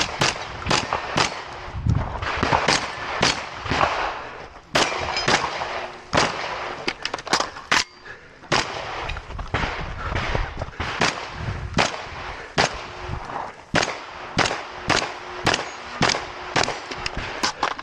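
A shotgun fired in a fast, uneven string of several dozen shots, some in quick succession and some with short pauses between groups.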